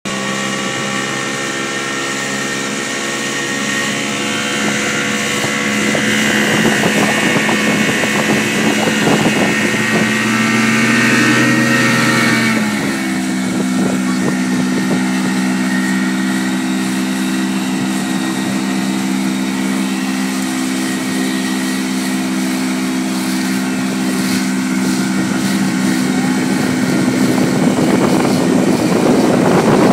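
A boat's outboard motor running under way while towing a tube, with a steady hiss of rushing water and wind over it. About twelve seconds in, the engine note drops to a lower pitch and then holds there.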